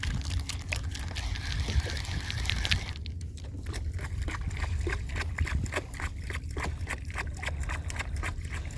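Water sloshing and splashing in the shallows, with many irregular splashes and a steady low rumble of wind on the microphone. The bright hissing wash thins out about three seconds in.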